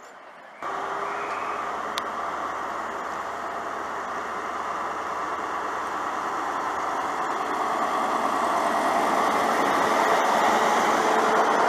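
Diesel engine of a First Great Western HST power car (class 43, 43012) running as the train moves slowly along the platform, with a steady engine hum that comes in suddenly just after the start and grows steadily louder. A single sharp click sounds about two seconds in.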